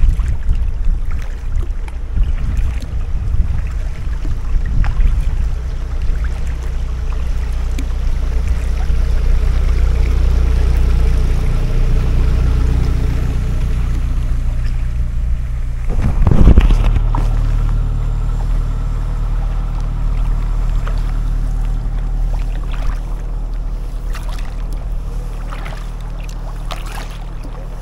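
Motor boat engine running steadily close by, under wind rumbling on the microphone, with a brief louder rush about halfway through.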